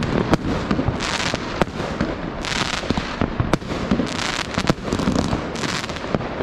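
New Year's fireworks going off all around: a steady crackle and hiss of many rockets and firecrackers, with frequent sharp bangs at irregular intervals.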